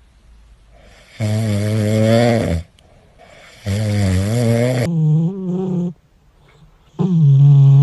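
Cat snoring: four pitched snores with quiet gaps between them, the last two higher-pitched and shorter than the first two.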